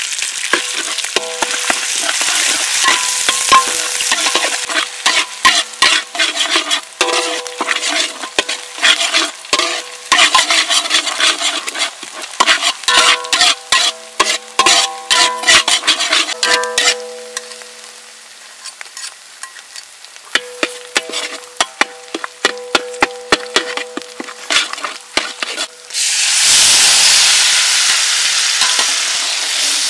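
Metal spatula scraping and knocking against a metal wok, each stroke ringing, while chili flakes and paste fry in oil. About four seconds before the end, liquid poured into the hot wok sets off a sudden, loud sizzle.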